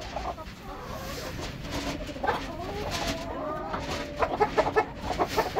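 Chickens clucking and calling, with a drawn-out wavering call in the middle and a quick run of short, sharp clucks near the end.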